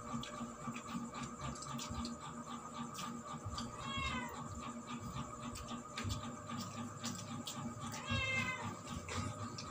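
A domestic cat meowing twice, two short calls about four seconds apart. Light clicks and clatter from people eating at the table run underneath.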